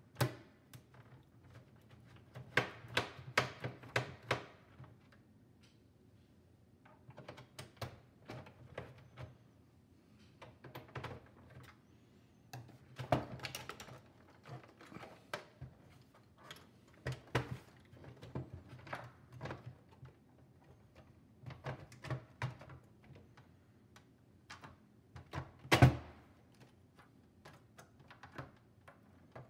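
Scattered clicks, ticks and knocks in short clusters from a screwdriver backing out screws and hands handling the beige plastic case of a Tandy Color Computer 3. One louder knock comes near the end.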